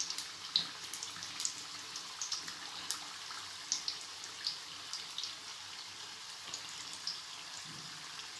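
Samosas deep-frying in hot oil: a steady sizzle with scattered sharp pops and crackles.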